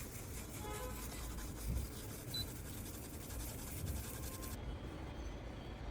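Hot air rework gun blowing with a steady hiss, cutting off suddenly about four and a half seconds in.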